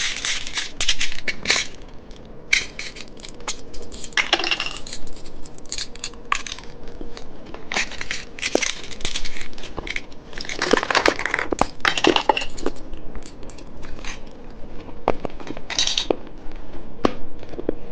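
Close-miked crunching and chewing of candy: irregular crisp crunches that come in bouts, with short lulls between.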